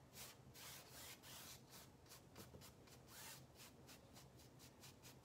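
Faint brushing of a paintbrush across a stretched canvas, a quick run of short strokes, several a second.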